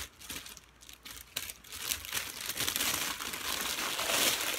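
Clear plastic packaging bag crinkling and rustling as it is handled and pulled open, with scattered crackles, growing louder and denser in the second half.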